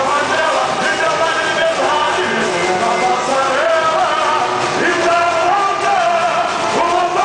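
Loud samba music with singing, going on steadily without a break.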